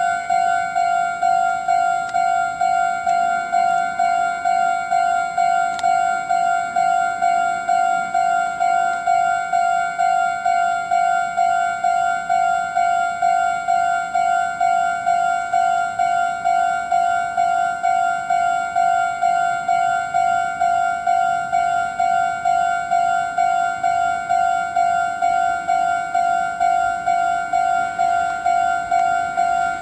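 Japanese railway level-crossing alarm ringing its repeating electronic 'kan-kan' bell at a steady, even pace, warning that a train is approaching.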